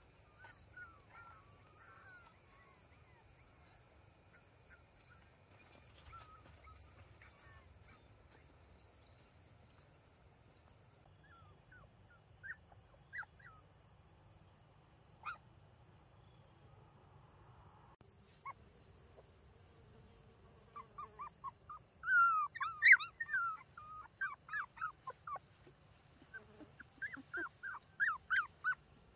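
Puppies crying in many short, high-pitched yelps and whimpers, coming thick and fast from about two-thirds of the way in, over a steady high insect drone.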